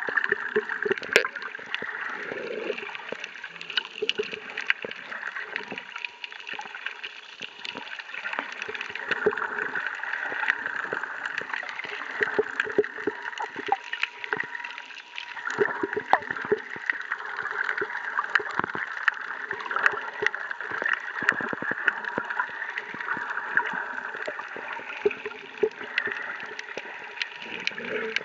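Underwater ambience picked up by a submerged camera: a steady muffled rush of moving water, with many scattered sharp clicks and crackles and irregular low gurgles.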